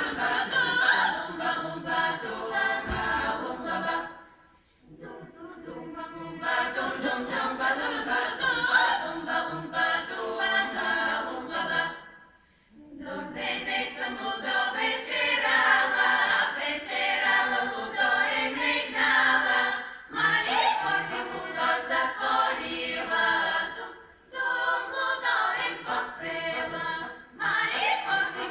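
Women's folk choir singing a cappella, in long phrases with brief pauses between them.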